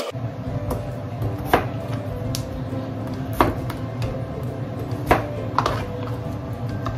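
Kitchen knife cutting a raw potato into chunks on a plastic cutting board. About six separate knocks of the blade striking the board come at uneven intervals.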